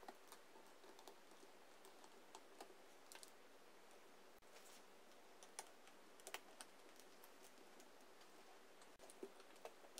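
Faint, irregular small clicks and ticks of metal tools on a laptop's screws and chassis: tweezers placing tiny screws and a screwdriver working on them, over near silence.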